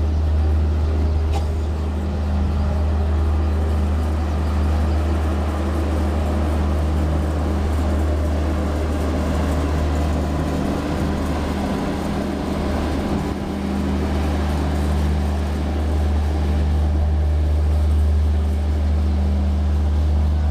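Express passenger train running through a station at speed, a steady loud rumble of coaches and wheels on the rails that swells briefly in the middle.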